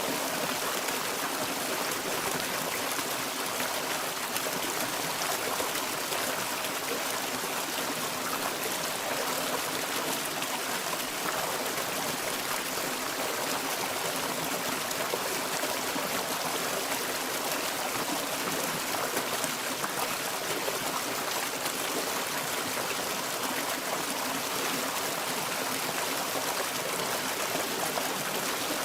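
Turbulent water flowing and churning close to the microphone: a steady, even rush with a bright hiss and no breaks.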